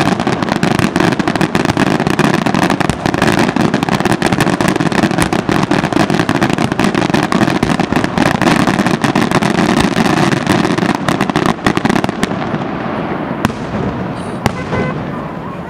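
Aerial fireworks display: a dense, unbroken barrage of shell bursts and crackling. After about twelve seconds it thins to a few separate bangs and fades.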